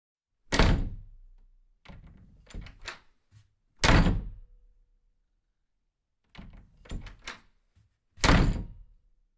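Three heavy thuds roughly four seconds apart, with lighter knocks and clattering in between.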